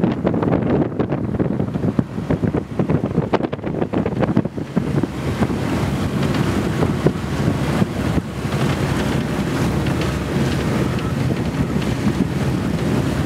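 Wind buffeting the microphone over the rush of choppy water around a sailboat under way, loud and irregular throughout.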